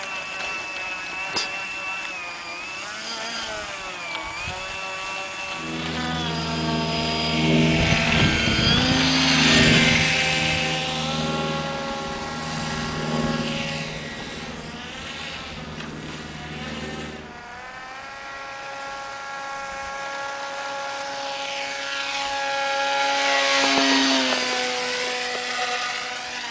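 Brushless electric motor and propeller of a scratch-built RC plane whining in flight, its pitch rising and falling with the throttle. It grows louder and then drops in pitch as it passes, once about eight to ten seconds in and again near the end.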